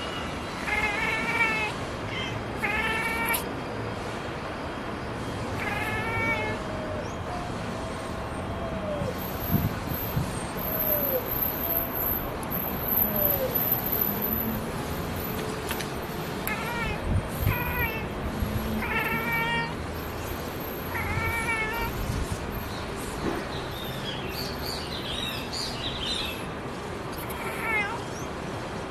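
Domestic cat chirping at a bird: short, quick clusters of high, trilling chirps, repeated in several bouts with pauses between them.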